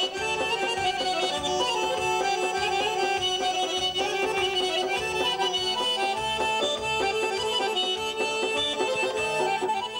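Two garmons (Azerbaijani button accordions) playing a lively traditional tune together over a steady low pulsing beat.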